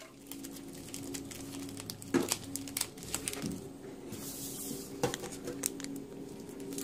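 Faint rustling and light taps of trading cards being handled and slid into plastic card sleeves, with a brief crinkle a little past halfway, over a steady low hum.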